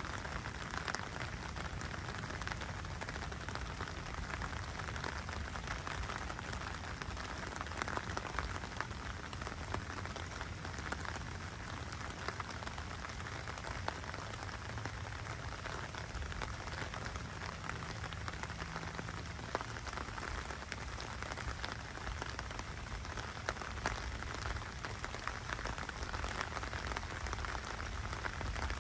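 Steady rain falling on a wet, flooded street, with many individual drops striking close by.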